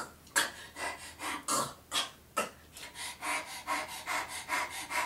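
A woman imitating a dog panting, in breathy puffs: spaced out at first, then quicker, about four breaths a second, from around three seconds in.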